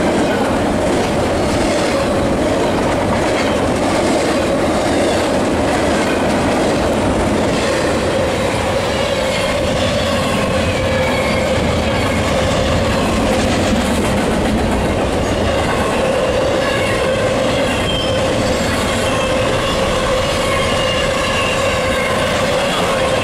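Double-stack intermodal freight train rolling past: a steady, loud rumble and clatter of well-car wheels on the rails. Thin high squealing tones from the wheels waver in and out, stronger in the second half.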